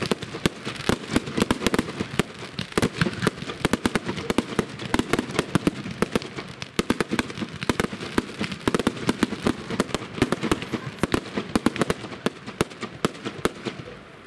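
Fireworks barrage: a dense, rapid run of sharp bangs and crackles, several a second, that stops abruptly at the end.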